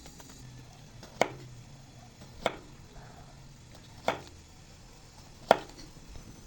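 Knife chopping on a cutting board: four single, sharp strokes spaced about a second and a half apart.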